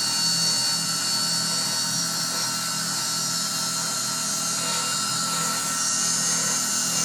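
Spindle of a 3040 desktop CNC router running with a steady high whine while its engraving bit cuts into MDF. A low hum from the stepper motors pulses on and off as the axes move.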